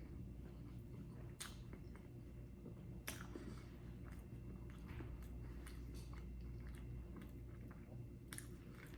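Close-miked chewing and biting of food, with short wet mouth clicks scattered throughout, over a low steady hum.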